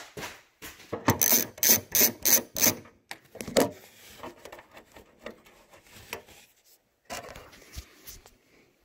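Hand ratchet working a bolt loose, clicking in a run of five or six quick bursts about a second in, followed by quieter knocks and handling of metal parts.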